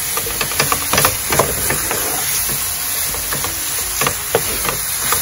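A spatula stirring and scraping a lentil and masala mix around a nonstick frying pan, with steady sizzling and irregular clicks of the spatula against the pan as the spices fry.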